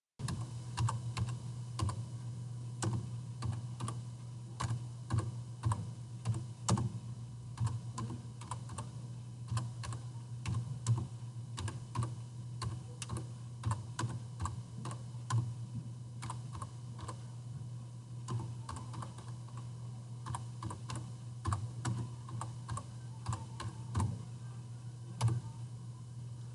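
Computer keyboard keys pressed one at a time in slow, uneven hunt-and-peck typing, separate clicks about one to three a second, over a steady low hum.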